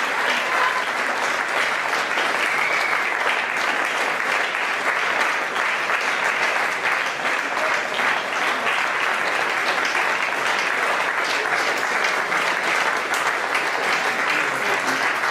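Crowd applauding steadily, a dense patter of clapping that keeps up without a break.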